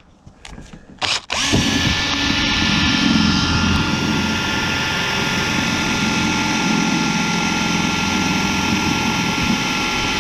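Electric drill motor starting about a second and a half in after a few light clicks, then running steadily at one speed, used to fasten a loose truck door panel in place.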